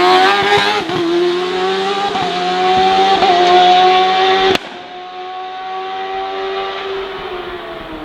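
Hillclimb race car engine at high revs, its note climbing slightly as it accelerates up the hill. About four and a half seconds in it cuts off suddenly. A quieter engine note follows and slowly falls in pitch.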